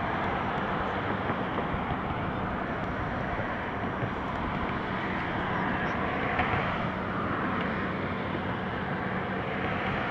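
Steady road traffic on the bridge: a continuous rush of passing cars with a low hum underneath.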